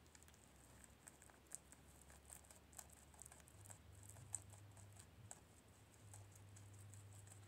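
Guinea pig chewing a spinach leaf: faint, quick, irregular little clicks of its teeth working through the leaf.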